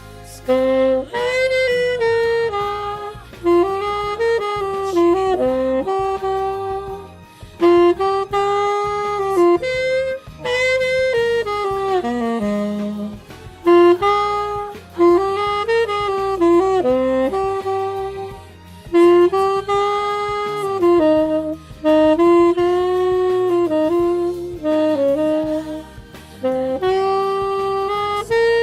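Tenor saxophone playing a jazz melody in phrases of a few seconds, separated by short pauses.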